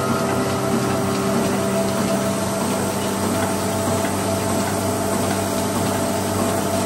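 Two-capstan wire drawing, straightening and cutting machine running steadily: an even mechanical hum with several constant tones over a noisy wash.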